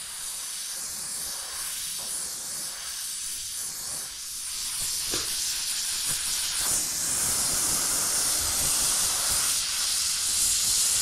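Gas torch flame hissing steadily while brazing a brass rod into a hole in a car's steel quarter-panel corner; the hiss grows louder about halfway through.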